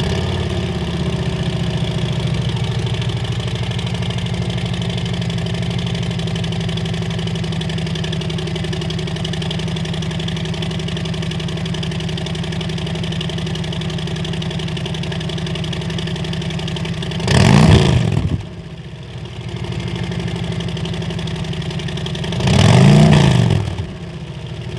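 Harley-Davidson V-twin running through de-catted Vance & Hines Slasher slip-on mufflers with a Screaming Eagle high-flow air cleaner. It catches and settles into a steady idle, then is revved twice near the end, each rev a short rise and fall about five seconds apart.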